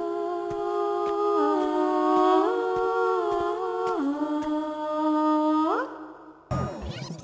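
Cartoon closing-credits music: a sustained, humming, vocal-like chord that moves in a few steps, glides upward and stops about six seconds in, followed by a short swooping jingle near the end.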